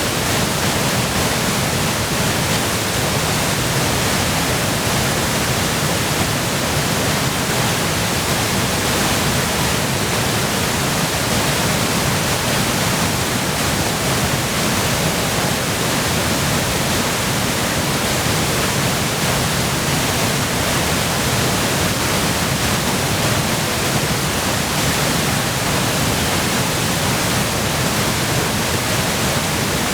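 Waterfall in high flow from spring melt and heavy rain: a loud, steady rushing roar of falling water.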